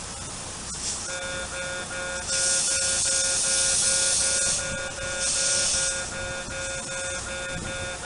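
Railway level-crossing alarm starting up about a second in, an electronic bell repeating its tone at an even beat. Louder bursts of hiss come and go over it.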